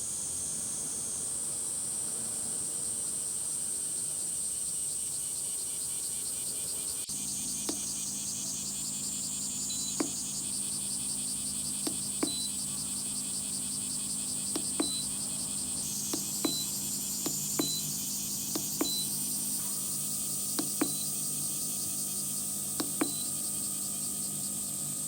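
Insects trilling steadily in a high, finely pulsing chorus. About seven seconds in a low steady hum starts abruptly, and a higher steady tone joins later, with scattered faint clicks throughout.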